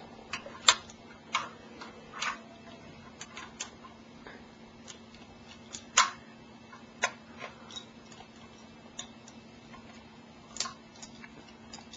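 Irregular small metal clicks and ticks of an Allen wrench working the set screw under a single-handle ball faucet's handle. There are a dozen or so spread out, the sharpest about halfway through.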